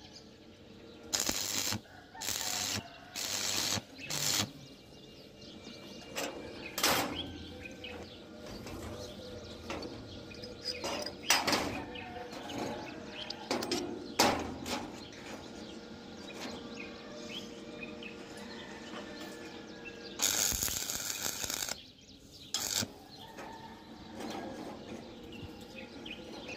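Stick-welding arc crackling in short bursts as tack welds are struck: four in the first few seconds and a longer one about twenty seconds in. Sharp metal knocks fall in between as the parts are fitted.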